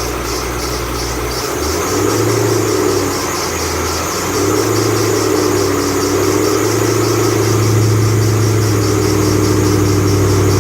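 2008 Ford Mustang Bullitt's 4.6-litre V8 running, with the 8-rib serpentine belt giving a high, pulsing squeal about three times a second. The engine note rises about two seconds in and again near four and a half seconds.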